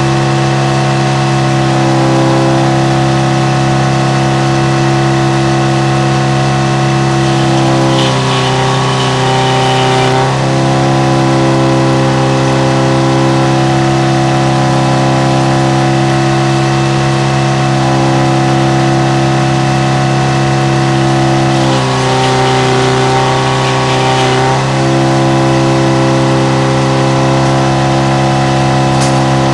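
Frick circle sawmill running with a steady drone from its power unit. Twice the pitch sags and a hiss rises for two to three seconds each time, as the mill takes load, typical of the blade cutting through wood.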